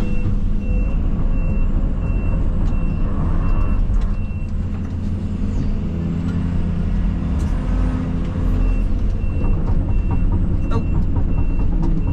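Case CX220E excavator's diesel engine running under load while its travel alarm beeps about twice a second, pausing for a few seconds midway and starting again near the end: the machine is tracking. Scattered knocks and clanks over the engine.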